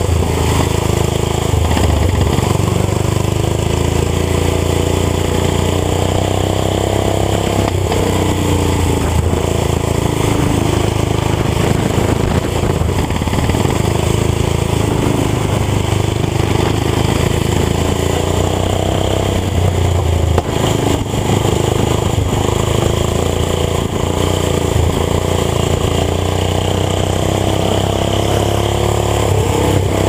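Small engines of racing lawn tractors running hard, close to the microphone, the engine note rising and falling a little as the throttle changes.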